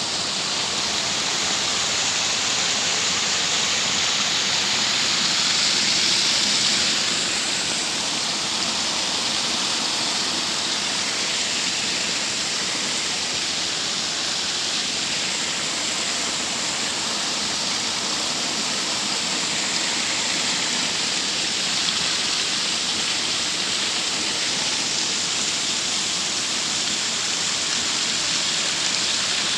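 A waterfall and the creek below it rushing steadily, a loud even hiss of falling and flowing water that swells a little about six seconds in.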